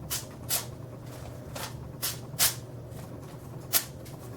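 A freshly sharpened knife edge test-slicing through a material, heard as five short, crisp swishes at uneven intervals. It is cutting with very little resistance.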